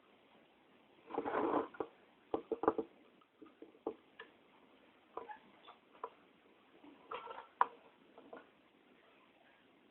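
Small clicks, taps and scrapes of a screwdriver working on a hard drive's metal casing as its screws are driven back in. There is a longer scraping rustle about a second in and a quick cluster of clicks a little after seven seconds.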